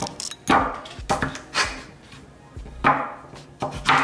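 Crinkle-cut knife chopping through raw sweet potatoes, the blade knocking on a wooden cutting board about six times at an uneven pace.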